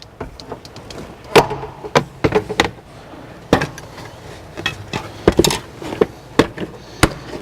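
A plastic interior trim panel being worked off its retaining clips: a string of sharp clicks, snaps and knocks at irregular intervals, with rustling handling noise between them.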